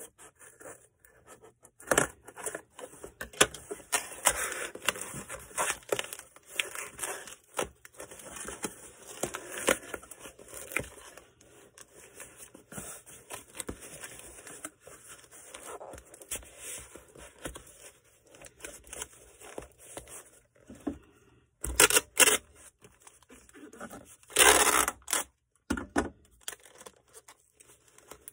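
Packing materials being handled: irregular scraping, rustling and small knocks, with a few louder tearing noises, two close together just before the last quarter and a longer one soon after.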